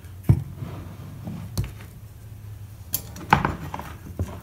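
About five sharp knocks and clicks, spaced out, as glass panel pieces and tools are handled on a wooden workbench, with a small cluster of taps about three seconds in.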